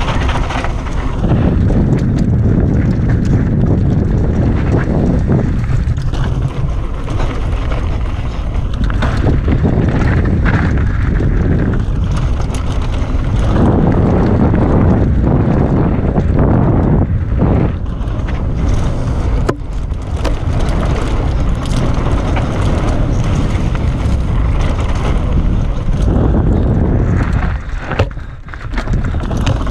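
Mountain bike descending a dirt trail at race speed: heavy wind buffeting on the helmet or chest camera's microphone, over tyre noise on dirt and constant rattles and knocks from the bike as it hits bumps.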